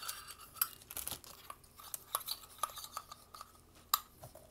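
Foil booster packs and plastic packaging crinkling as a Poké Ball tin is unpacked, with scattered light clicks and one sharp click about four seconds in.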